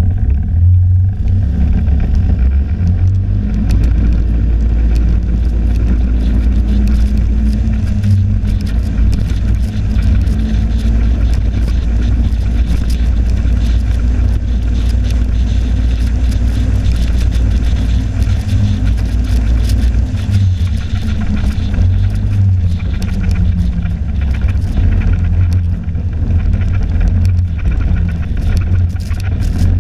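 Snowmobile running steadily at speed, heard from aboard the machine, with a constant deep rumble.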